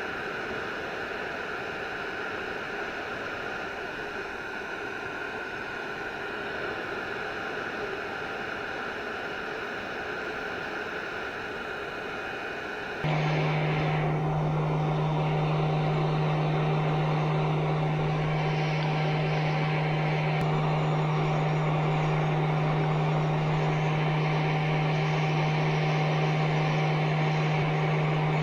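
Small electric fans and motors running steadily. About halfway through, a louder steady hum with a low drone and a higher whine starts suddenly and runs on.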